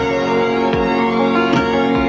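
Film score music: held chords with a fresh note sounding about every three-quarters of a second.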